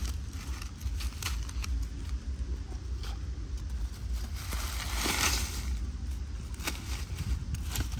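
Dry leaves and soil rustling and scraping as the leaf litter is dug and poked with a stick, a handful of short scratchy bursts with the longest about five seconds in, over a steady low rumble.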